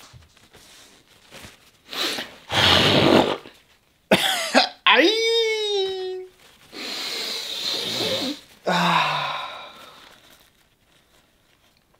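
A person coughing and blowing their nose noisily into a paper napkin: several harsh bursts, one long honk that falls in pitch about five seconds in, then more blowing that fades away.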